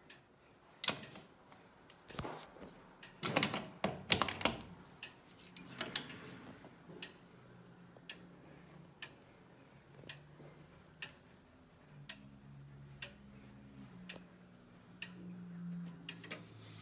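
Grandfather clock's Hermle movement ticking about once a second. In the first few seconds several louder knocks and clatter come from the clock being handled.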